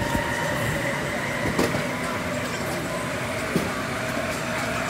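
Moving train heard from inside the carriage: steady running noise with a thin high whine held throughout, and a couple of sharp clacks from the wheels on the rails, about a second and a half in and again past three seconds.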